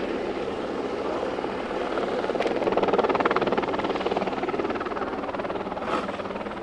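Helicopter rotor chopping steadily, swelling to its loudest about three seconds in and then fading a little. There is a short knock near the end.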